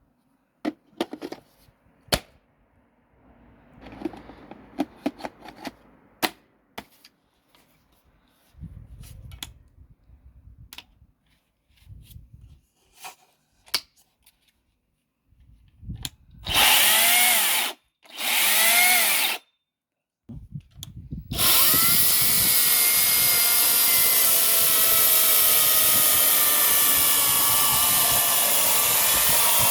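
Battery-powered brushless chainsaw: first some clicks and handling knocks, then two short trigger pulls with the motor whining up and winding down, then the motor running continuously at speed from about two-thirds of the way in.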